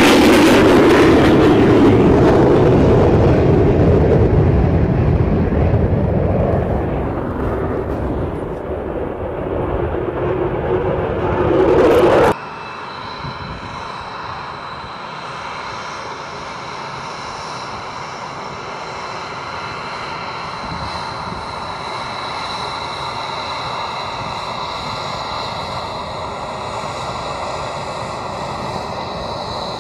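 Roar of an F-22 Raptor's twin F119 turbofans going away, wavering in pitch and fading, then cut off sharply about twelve seconds in. After that, the quieter steady whine of an F-22's engines at low thrust while it taxis, with a few high tones held over the rushing noise.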